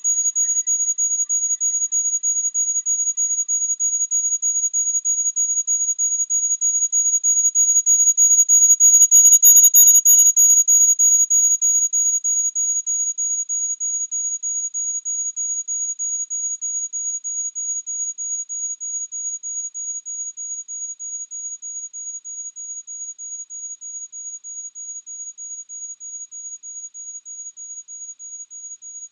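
A steady, high-pitched electronic tone that pulses rapidly. It swells about a third of the way in, with a brief hiss alongside it, then slowly fades.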